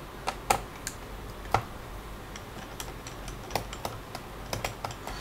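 Small, sharp clicks at irregular intervals as a screwdriver works a screw in a laptop's plastic base.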